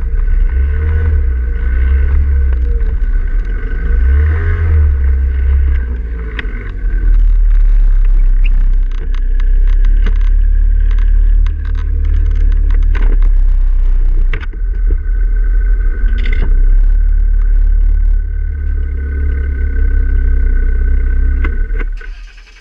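Loud low rumble and buffeting on a ground-level action camera moving over rough ground in strong wind, with a faint steady whine and scattered knocks and bumps. It dies away quickly near the end as the camera comes to rest.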